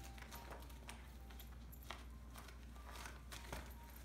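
Gift wrapping paper crinkling and tearing in faint, scattered crackles as a Welsh Terrier puppy chews and tugs at it.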